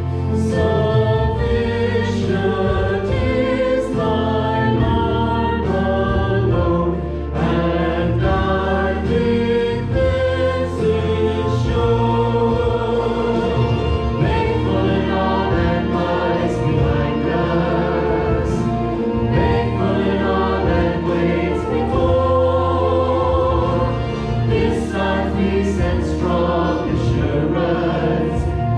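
A small mixed vocal ensemble of five voices, women and men, singing a hymn in harmony into microphones over steady instrumental accompaniment.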